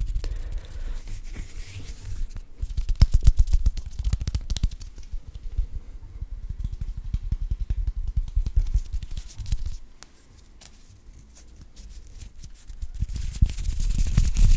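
Close-miked ASMR hand sounds: fingers fluttering and hands rubbing together right at a microphone, giving many small crackling clicks and soft low thumps. It goes quieter for a few seconds, then louder palm-rubbing comes in near the end.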